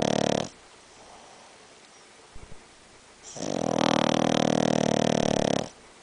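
Boston Terrier snoring very loud in its sleep: a long fluttering snore ends about half a second in, and another runs from about three seconds in until shortly before the end, with quiet breathing between.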